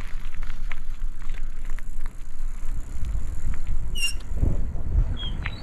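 Bicycle coasting downhill, heard from the bike: wind rumbling on the microphone and tyres running on cracked asphalt, with small rattles and a brief high squeak about four seconds in.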